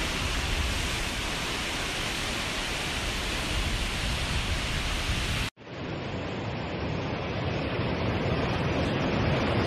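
Floodwater rushing and churning in a swollen river torrent, a steady loud rush of water. About five and a half seconds in, it cuts out abruptly for an instant and resumes, duller, from a second recording of the torrent.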